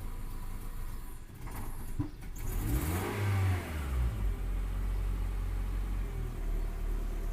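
Honda Civic engine revs up briefly about three seconds in, then drops back to a steady idle, with a sharp click just before the rev. The owner says the engine loses power and pops, and suspects a spark plug problem.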